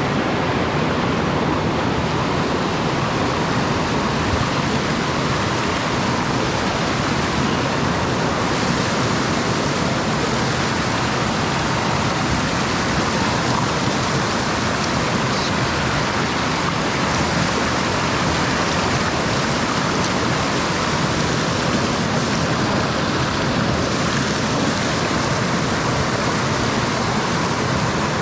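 Mountain stream rushing: a loud, steady wash of running water with no change.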